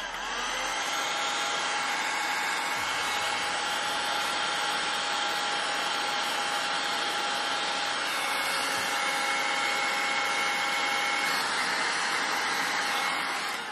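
Electric heat gun running steadily, a rush of air with a fan whine over it, blowing hot air onto heat-shrink tubing to shrink it around a wiring connector.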